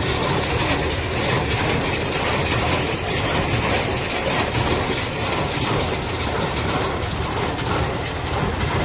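Hay baler running: a steady mechanical clatter of fast ticking and rattling over a low engine drone.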